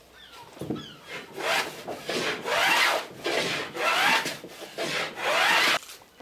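Hand plane cutting shavings off the top edge of a wooden clinker plank, bevelling it for the lap of the next plank. The plane is a modified one, with a strip of wood glued down the centre of its sole and a chamfered blade. A few light strokes come first, then about four long strokes, each a scrape with a rising tone.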